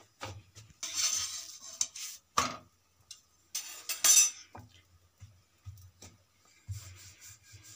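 A metal utensil scraping and clinking against an iron tawa in several short bursts, the loudest about four seconds in.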